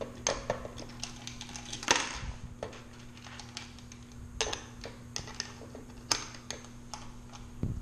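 Metal latches on a toy barn's doors worked quickly by hand: irregular clicks and clacks as bolts slide and hooks and a chain catch, with a few louder clacks.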